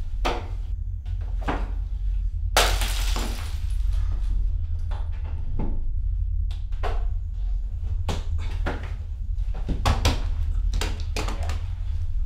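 A struggle of crashes and knocks: a loud crash of shattering glass about two and a half seconds in, then a string of sharp knocks and thuds, over a steady low drone.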